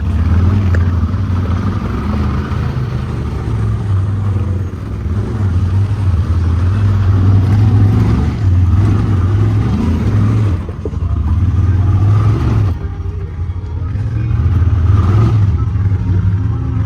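Honda Talon side-by-side's engine running on a trail, its revs rising and falling as the throttle is worked, easing off for a moment about three quarters of the way through before pulling again.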